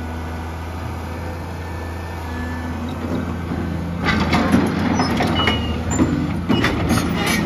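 The diesel engine of a 1987 Komatsu PC200-3 crawler excavator runs steadily as the operator works the boom and bucket, with a tone coming and going above the engine. About four seconds in, loud irregular metallic clattering and rattling joins.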